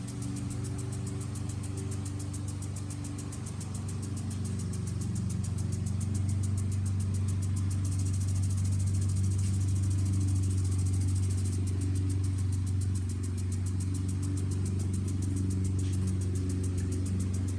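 Petrol lawn mower engine running steadily out of view, a low, even hum that grows louder about a third of the way in and eases slightly near the end, with a faint high hiss above it.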